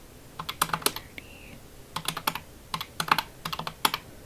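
Fingers tapping the plastic keys of a desktop calculator, entering figures in four quick runs of clicks.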